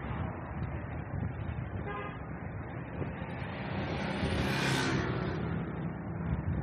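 Busy street traffic with a short horn toot about two seconds in, then a motor vehicle passing close, loudest near the five-second mark.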